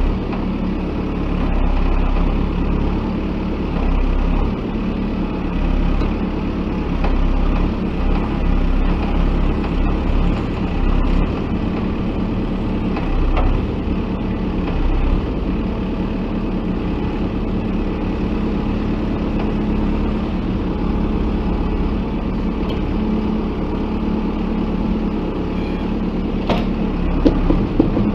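JCB 3DX backhoe loader's diesel engine running steadily under work. A sharp knock comes near the end.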